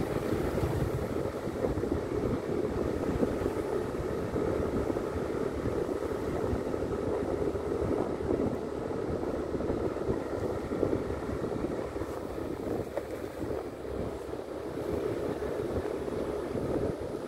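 Steady wind rush on the microphone over the running of a motor scooter's engine and tyres on the road while riding.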